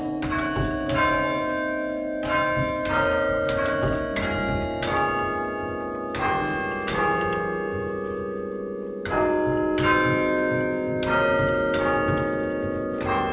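A chime of thirteen church bells cast by John Taylor & Co in 1939, struck one after another in an irregular sequence of single notes. Each stroke hangs on and overlaps the next. There is a brief lull about seven seconds in before the strikes resume.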